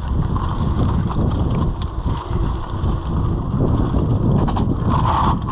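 Mountain bike rolling fast down a gravel trail: a steady rumble of tyres on loose gravel mixed with wind buffeting the microphone, and a few sharp clicks and knocks from the bike about four and a half seconds in.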